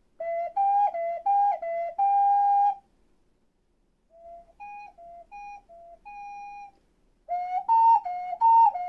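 Ocarina playing a short tongued practice phrase that steps back and forth between two notes three times and ends on a held higher note. A much quieter echo of the same phrase follows, played by a remote student over the online call, then the ocarina plays the phrase again near the end.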